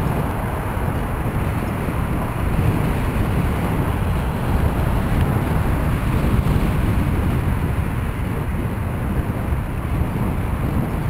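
Steady low rumble of wind buffeting the microphone of a camera on a moving bicycle, mixed with the sound of car traffic driving alongside.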